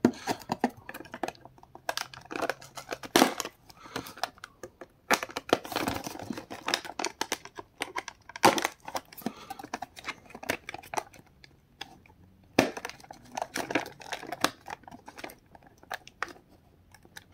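Plastic blister packaging and its cardboard backing card being handled and pried apart by hand: irregular crinkling and crackling, with sharp clicks and snaps coming in clusters.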